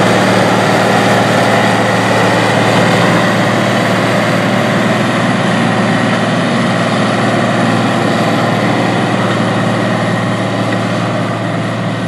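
Case 2670 Traction King's turbocharged six-cylinder diesel engine running steadily while pulling a loaded dirt pan. It grows a little fainter near the end as the tractor moves away.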